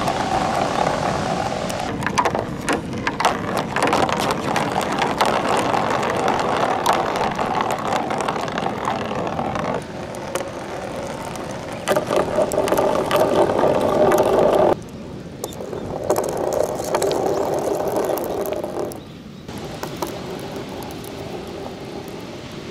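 Small plastic balls rolling down plastic rain gutters: a steady rolling rumble with many clicks and knocks as the balls hit each other and the gutter joints. The sound stops and changes abruptly a few times.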